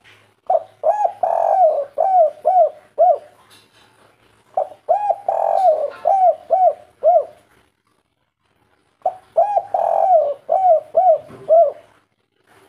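A spotted dove (tekukur) singing its 'kuk 3' song: three cooing phrases about four seconds apart, each a run of short arching coos with a longer, fuller coo early in the run.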